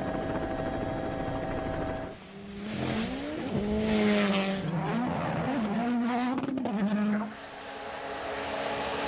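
Rally car engine revving hard through a run of gear changes, its note climbing and dropping several times, from about two and a half seconds in until about seven seconds in. Before and after it there is a steadier hum with cuts between them.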